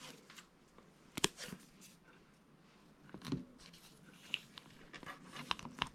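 Black electrical tape being pulled off the roll and wrapped around coaxial cables in a plastic jar lid: faint scattered clicks and short crackles of tape and plastic being handled, with a sharper click about a second in.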